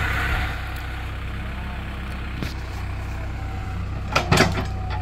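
The engine of a heavy vehicle running steadily at low revs, with a couple of sharp knocks a little past four seconds in.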